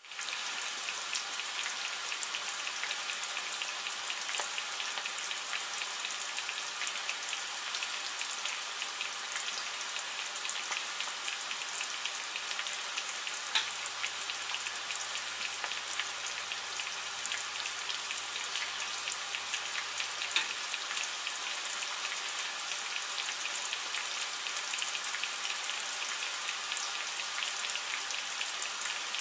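Marinated banana-peel strips frying in oil in a non-stick pan: a steady, dense sizzle of fine crackles, with two sharper pops, one about halfway through and one about two-thirds through.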